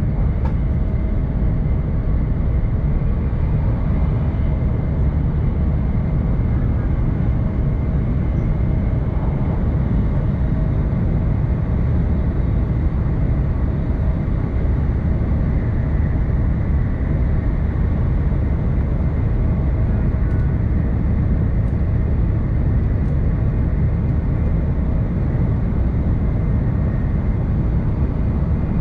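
Tohoku Shinkansen train running steadily, heard inside the passenger cabin: an even, continuous low rumble of running noise with a faint steady hum over it.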